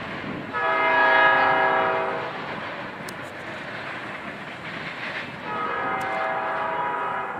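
Diesel locomotive's multi-chime air horn sounding two long blasts, the first louder, over the steady rumble of a passing freight train.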